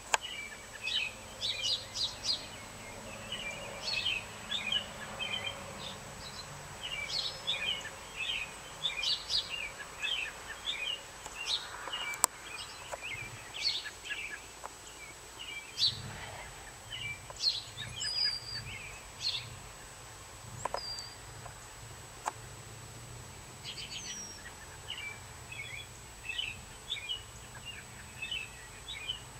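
Backyard songbirds chirping and calling: many short high chirps in quick runs, with a short lull about two-thirds of the way through.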